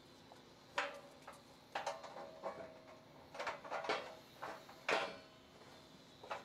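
Faint metallic clinks and knocks, about nine spread over a few seconds, some with a short ring: steel thrie-beam panels being fitted against the crash cushion's steel diaphragms by hand, with bolts and washers put in place.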